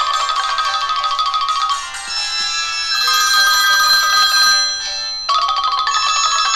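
A high-pitched, tinkly electronic melody of fast repeated notes with no bass, like a phone ringtone. It thins out briefly about five seconds in, then the phrase starts again.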